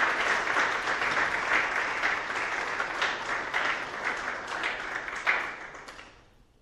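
Audience applauding in a lecture hall, a dense steady patter of many hands clapping that dies away near the end.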